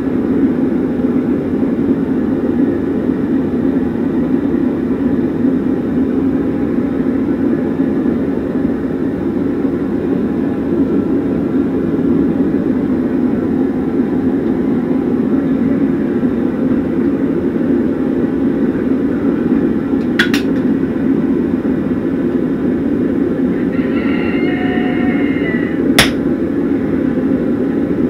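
Forge running with a steady rushing noise while the workpiece heats. Near the end come a light click, a brief high call, and then a single sharp clank of metal.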